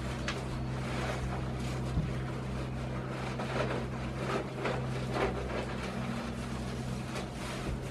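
A steady low hum, with scattered soft rustling and a light knock about two seconds in, from goats moving about on a straw-covered floor.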